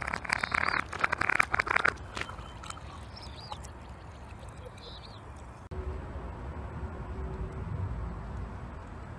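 Fizzing and spattering with many sharp crackles for about two seconds, then a quiet outdoor stretch with a few bird chirps. About two thirds of the way in, a low rumble takes over.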